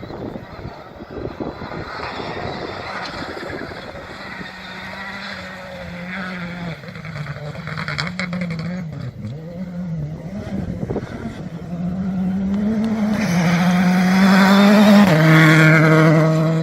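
Rally car engine approaching on a special stage, its revs rising and falling through corners and gear changes and growing louder. The engine note climbs to its loudest, then drops sharply in pitch about a second and a half before the end.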